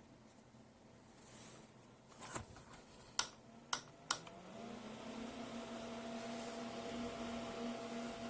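Small battery-powered desk fan: four sharp clicks, then about four seconds in its motor spins up with a briefly rising pitch and settles into a steady hum.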